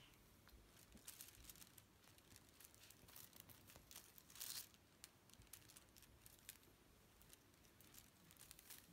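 Faint rustling and scratching of kittens scrabbling and wrestling on a fleece blanket, with one louder rustle about four and a half seconds in.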